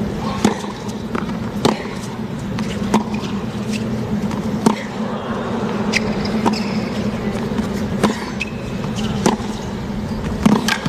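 Tennis rally: the ball is struck back and forth by rackets on a hard court, with sharp hits and bounces about every one to two seconds over steady stadium background noise.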